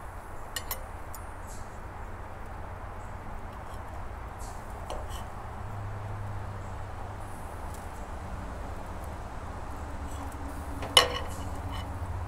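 Steak knife and fork cutting a grilled fish steak on a plate, with a few faint clicks and scrapes. About eleven seconds in comes one sharp, ringing clink as the knife is set down on the plate. A steady low hum runs underneath.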